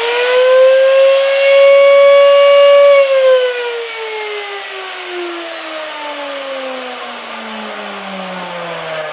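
Makita RF1100 router's motor, with its soft-start module bypassed, finishing its spin-up and running at full speed with a high steady whine. About three seconds in it is switched off and winds down, the whine falling steadily in pitch.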